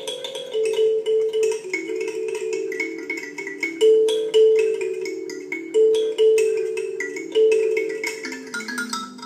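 Background music: a quick melody of short struck notes that sounds like marimba or xylophone.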